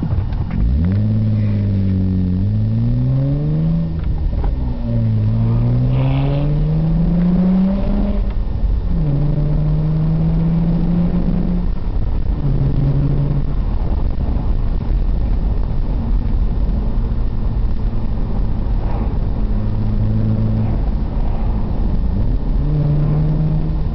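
Car engine heard from inside the cabin, accelerating hard: its note climbs through the gears, dropping at upshifts about four and eight seconds in, then holds a steadier cruising pitch with tyre and road rumble underneath.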